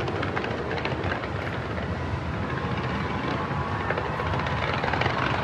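Fireworks going off in a continuous barrage: a steady, dense rumble of overlapping booms with many small sharp cracks.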